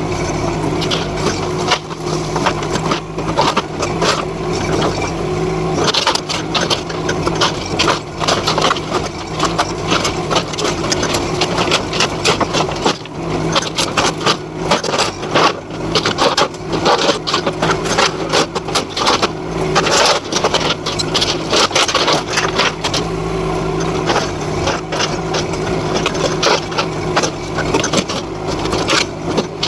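NT18K mini excavator's small engine running steadily under load, with repeated irregular clattering, crunching and scraping of wooden boards and corrugated sheet metal as the bucket tears into and drags the demolition debris.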